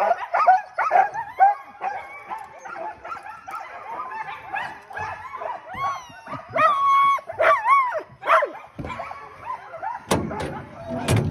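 A harnessed sled dog team barking, yipping and whining all at once, with longer rising-and-falling yowls in the middle. A low thump comes about ten seconds in.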